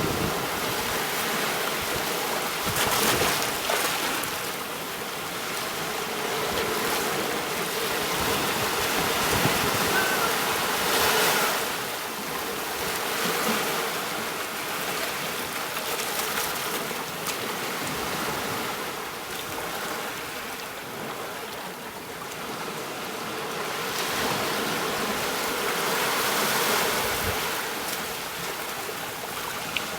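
Ocean surf washing onto a beach: a continuous hiss of breaking water that swells and fades every several seconds.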